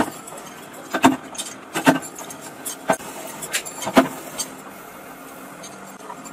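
Heavy metal-on-metal clanks about once a second, five in a row, each with a short ring, over the steady hum of workshop machinery. The clanks stop about four seconds in, leaving only the hum.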